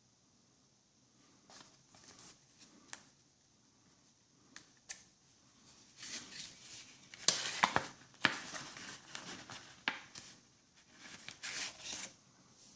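Cardboard box and paper inserts being handled: scattered light clicks and taps, then louder rustling and crinkling in bouts from about six seconds in.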